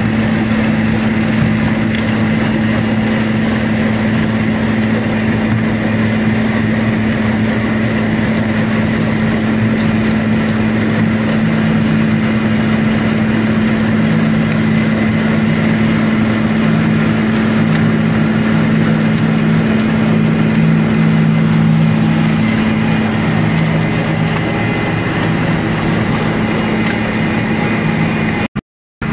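Caterpillar RM-500 rotary mixer working, its diesel engine and mixing rotor giving a steady drone with a constant low hum. A second, lower tone comes and goes through the middle. The sound drops out completely for about a second near the end.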